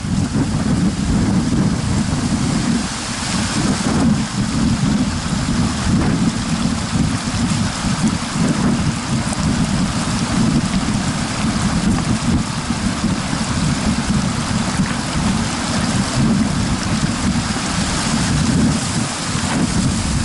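Wind buffeting a camera microphone that has no windscreen: a loud, fluttering low rumble under a steady hiss.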